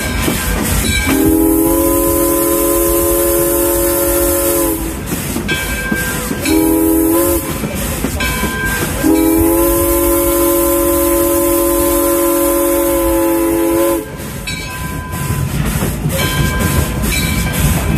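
The whistle of Alco steam locomotive No. 18 sounds a long blast, a short one, then another long one, several notes at once, each lifting slightly in pitch as it cuts off. Under it runs the steady rumble and clatter of the train rolling on the rails.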